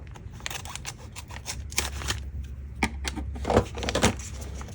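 Scissors snipping open a sticker package: a run of short clicks and crinkles, with a few louder snips near the middle and again toward the end.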